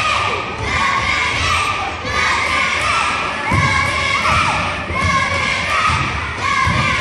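Crowd of children shouting and cheering in a school gymnasium, many high voices overlapping, with a few dull thumps, the strongest about halfway through.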